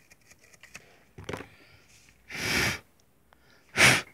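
Faint toothbrush scrubbing clicks die away, then three short rushes of breath follow, the last the loudest.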